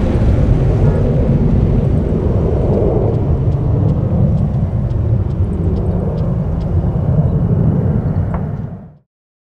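Jet noise from a Boeing 737-800's twin CFM56-7B turbofan engines as the airliner flies overhead: a loud, deep, steady rumble that cuts off about nine seconds in.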